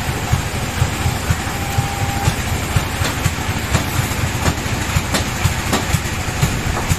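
Sawmill bandsaw machinery running, with a steady low engine-like thudding and scattered sharp clicks.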